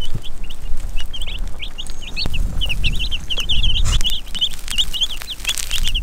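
A brood of Cornish cross broiler chicks a few days old peeping: many short, high peeps overlapping, several a second, over a low rumble.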